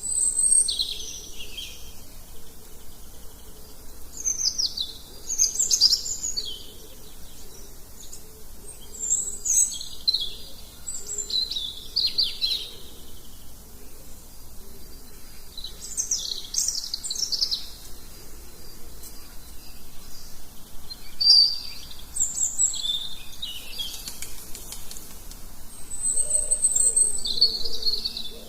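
Birds chirping and singing in short high phrases, repeated every second or two, over a faint steady background.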